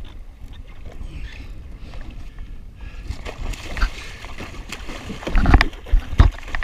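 Water splashing as a hooked kingfish thrashes at the side of a jet ski. About five and a half and six seconds in come a few loud, heavy thumps.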